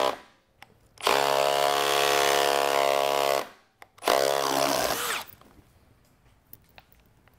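Milwaukee cordless impact driver running in reverse to back a drill bit out of a wooden board while being pulled up on, a test of whether its quick-insert collet holds the bit. It runs steadily for about two and a half seconds, then again briefly a moment later.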